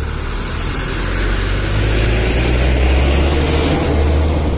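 Trans Jogja city bus driving past close by, its engine a deep steady drone with road and engine noise that grows louder as it passes.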